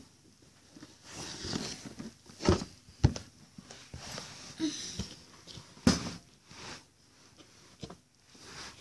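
Handling noise from a phone camera being picked up and moved by hand: scattered knocks and bumps with rustling, the sharpest clacks about two and a half, three and six seconds in.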